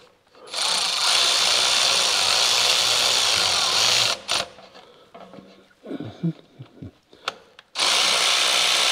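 Cordless electric ratchet running, driving in the mounting bolts of a new engine vacuum pump: one steady run of about three and a half seconds, a few light clicks, then a second run starting near the end.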